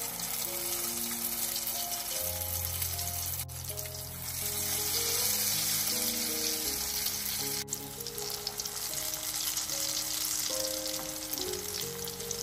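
Hot oil sizzling steadily around potato-and-egg fritters shallow-frying in a pan, with background music underneath.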